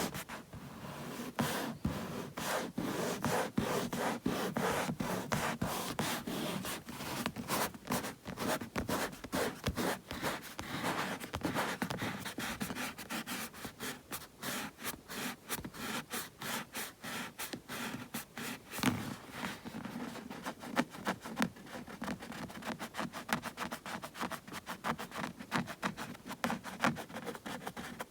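Bare hands rubbing together, palms rustling in quick repeated strokes. The strokes become quicker and lighter in the last third.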